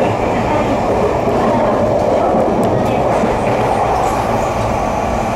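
Tobu Noda Line electric train running along the track, heard from inside the passenger car: a steady, even running noise of wheels on rail with a few faint ticks.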